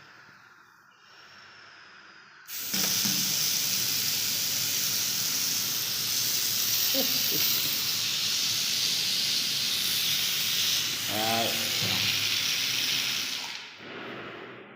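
Water running hard from a bathroom fitting, a steady rushing hiss that comes on suddenly about two and a half seconds in and dies away near the end.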